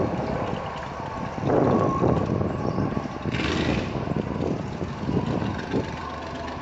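Distant Dodge Charger R/T 5.7-litre Hemi V8 engines running, mixed with wind noise on the microphone. The sound swells about one and a half seconds in, and a brief hiss comes a little after three seconds.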